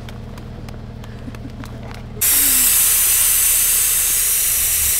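A steady low hum with faint ticks, then about two seconds in a loud, even hiss that starts suddenly and cuts off abruptly.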